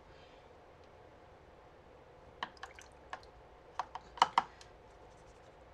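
Irregular light clicks and taps from a watercolour brush knocking against the palette and water jar while paint is mixed. They start about two and a half seconds in and the loudest come a little after the middle.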